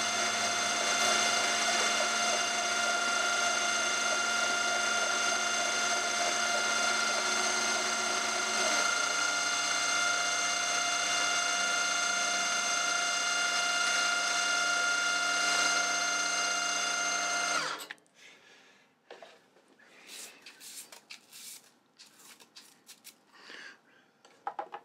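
Milling machine running a 6 mm carbide end mill through aluminium lubricated with WD-40: a steady machine whine of several tones mixed with cutting noise. It cuts off suddenly about three-quarters of the way through, leaving only faint light clicks.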